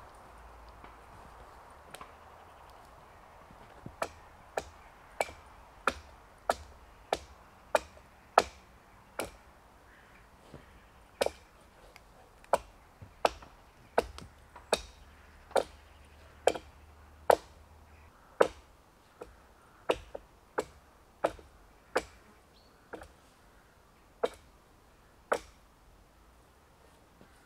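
Hultafors Hunter's Axe, a 1.2 kg small axe, chopping branches off a felled conifer. About thirty sharp strikes come at an irregular one to two a second, starting a few seconds in and stopping shortly before the end.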